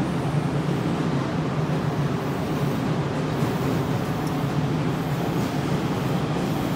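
Steady low hum of an Odakyu 3000-series electric train standing at the platform with its doors closed.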